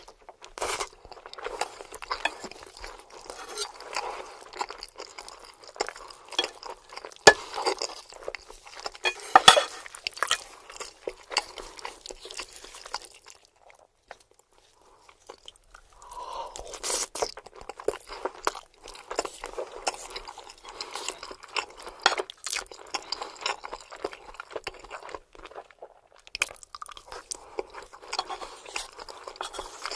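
Close-miked chewing and biting of lasagna, with dense wet clicks and crackles from the mouth. There is a pause of about two seconds about halfway through, then the chewing resumes.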